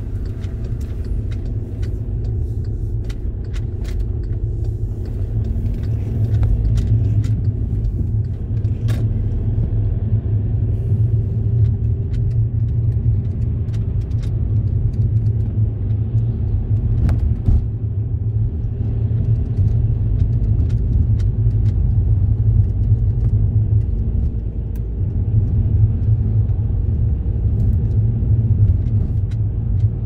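Steady low rumble of a car's engine and tyre noise heard from inside the cabin while driving, with a few faint clicks and rattles.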